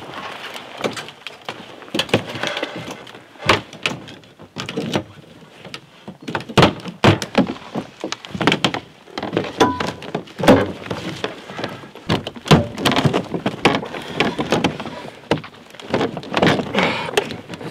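Plastic storage crates being shifted and set down on a metal roof rack, with repeated irregular knocks and thuds.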